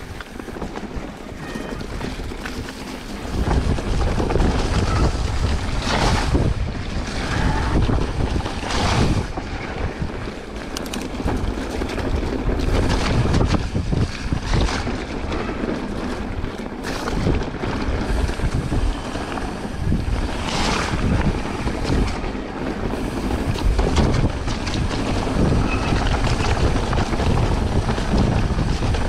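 Wind buffeting the camera microphone on a mountain bike riding a trail, with the rumble of tyres over rough ground and frequent knocks and rattles from the bike. The low rumble gets louder about three seconds in.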